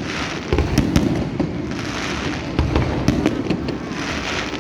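Fireworks display: a rapid series of bangs from aerial shells bursting, with crackling between them, the loudest bursts about half a second and a second in and again around three seconds.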